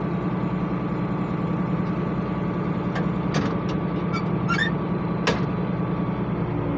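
International 886 tractor engine running steadily under baling work, with a few sharp clicks and knocks about three to five seconds in.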